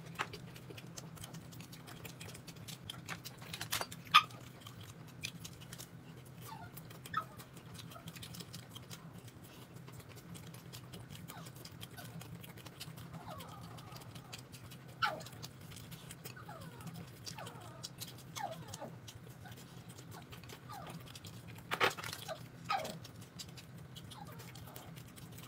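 A dog whining softly in several short falling cries over a steady low hum, with a few sharp clicks and knocks.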